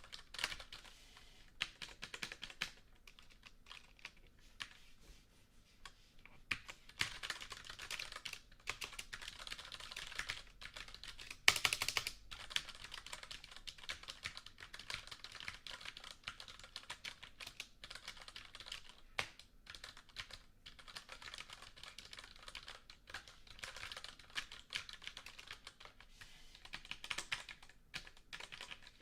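Computer keyboard being typed on: runs of quick key clicks broken by short pauses, with a louder clatter of keys about a third of the way through.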